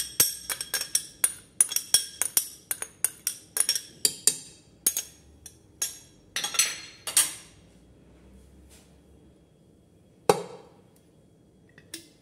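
A metal spoon clinking and scraping against a glass bowl, about four quick clinks a second for the first five seconds, as tomato is spooned out. Then a longer scrape, and about ten seconds in a single thump.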